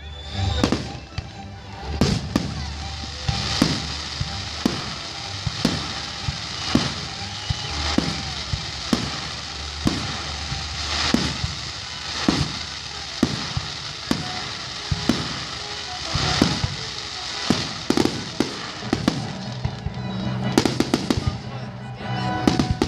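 Fireworks display: aerial shells bursting with sharp booms about once a second, over a continuous hiss and crackle from the burning effects.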